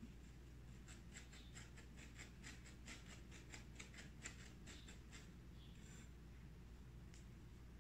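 Fresh herbs being cut: a faint run of quick, light cutting strokes, about five a second, stopping after about four seconds, with a couple of stray strokes near the end.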